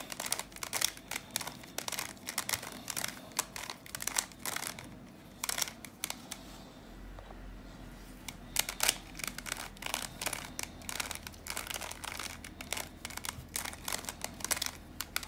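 Plastic Bermuda Uranus twisty-puzzle cube being turned by hand: a rapid, irregular run of clicks and clacks as its faces are rotated through a move sequence, with a short lull about seven seconds in.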